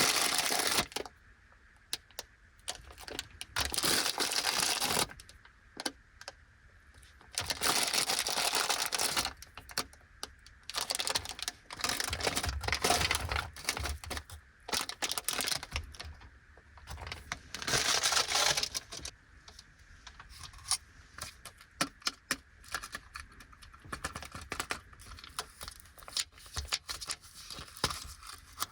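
Snack packaging crinkling and tearing in several bursts of a second or two each, then scattered light clicks and taps in the last third.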